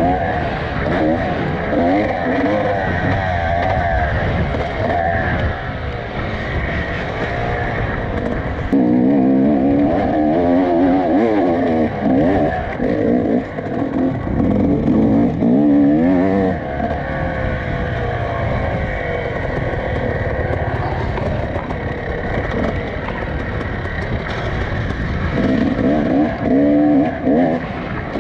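Off-road dirt bike engine being ridden hard, revving up and easing off again and again so its pitch keeps rising and falling. It is loudest in a stretch about a third of the way in and again near the end.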